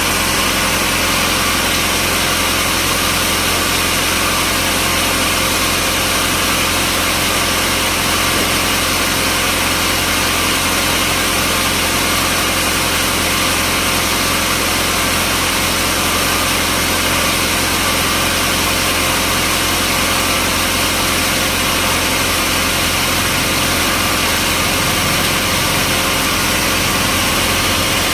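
Sawmill machinery running steadily: a constant engine drone with a dense, even hiss over it, unchanging throughout.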